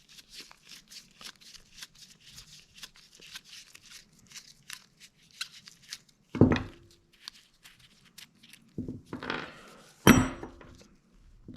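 Adjustable wrench being taken apart by hand: a flathead screwdriver makes small scraping clicks while it backs out the screw that holds the knurled thumb wheel. Steel parts are then set down, with two louder metal knocks that ring briefly, about six and ten seconds in.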